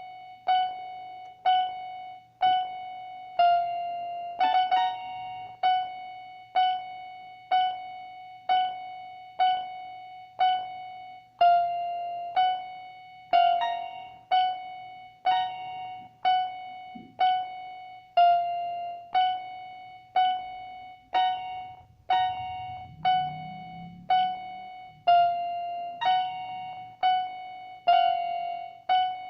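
Electronic keyboard, on a piano-like voice, playing one note struck over and over about once a second, each note ringing and fading before the next. Now and then a second, higher note sounds with it.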